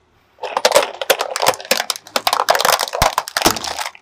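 Hard plastic toy buses cracking and snapping as a car tyre crushes them: a dense, irregular run of cracks that starts about half a second in and stops just before the end.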